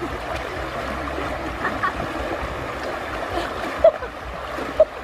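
Shallow water churning and washing as a person wades and lunges through it with a cast net, with two brief sharp sounds about a second apart near the end.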